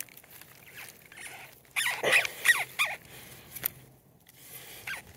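Rubber Fernco coupling squeaking against the PVC pipe as it is worked by hand: a quick series of short, high, falling squeaks about two seconds in, then a single sharp click.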